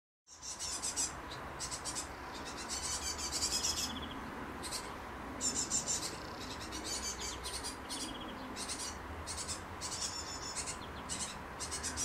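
Great tit fledglings begging for food: bursts of rapid, very high-pitched chirping, each about a second long, repeated again and again with short gaps.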